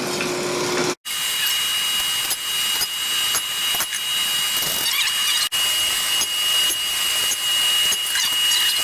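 Forge running with a steady high hiss and a thin, steady whine, the steel back in the fire for more heat. The sound breaks off for an instant about a second in and again midway.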